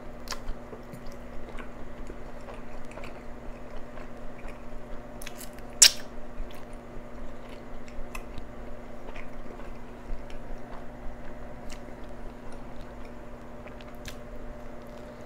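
Close-miked biting and chewing of a chicken sandwich with crispy fried chicken, melted cheddar and a toasted bun: wet, squishy mouth sounds with small crunches and clicks. One much louder sharp click comes about six seconds in, over a steady low hum.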